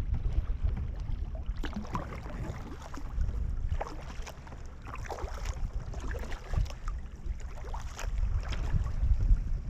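Kayak paddle blades dipping and pulling through calm sea water, with irregular small splashes and drips, over a low wind rumble on the microphone.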